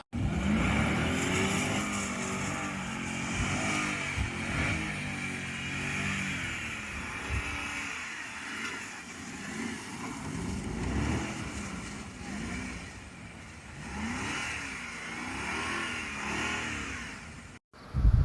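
Mercedes E430's 4.3-litre V8 revving hard, its pitch climbing and falling again and again, as the car is driven through burnouts and donuts. The sound cuts off suddenly near the end.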